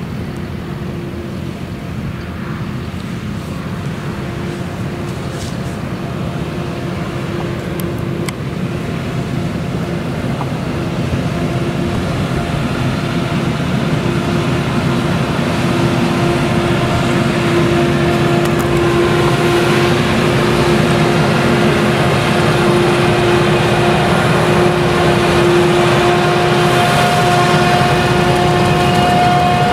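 Claas Jaguar 970 forage harvester's MAN V8 engine running under load while its header cuts and chops sorghum, with a steady hum over the engine noise. It grows louder as the machine comes closer, with the tractor hauling the trailer alongside.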